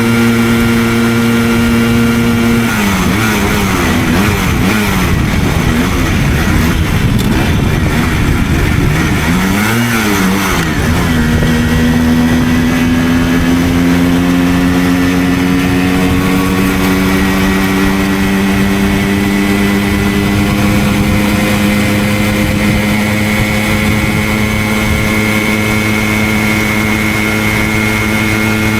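Simson moped's 50 cc single-cylinder two-stroke engine under way. The revs are steady at first, then swing rapidly up and down for several seconds from about three seconds in, then settle and climb slowly through the rest.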